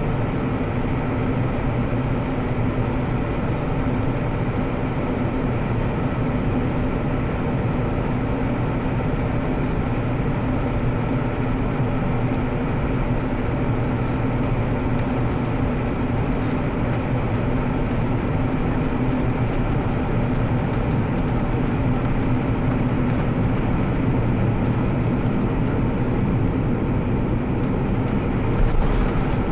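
Airbus A340-600 airliner's Rolls-Royce Trent 500 jet engines and airflow, a steady even drone with a constant hum running through it.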